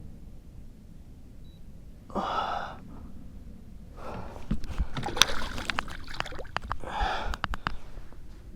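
A man's two heavy, gasping breaths, about two seconds in and near the end, with a run of sharp clicks and knocks from about four seconds in as the fish and gear are handled.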